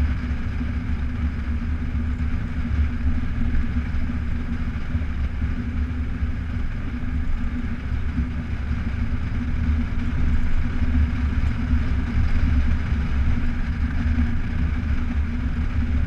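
Motorcycle engine running at a steady cruise on a gravel road, a constant low drone that holds its pitch, with road noise.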